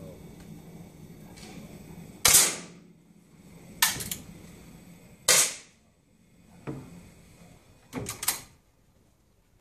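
Air rifle shots on a 10 m running target range: a series of sharp pops and clicks, about five in all, roughly a second and a half apart. The two loudest come about three seconds apart.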